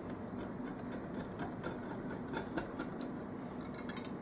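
Wire whisk ticking against a glass mixing bowl in quick, uneven clicks as beaten egg is stirred into a rice and coconut-milk batter.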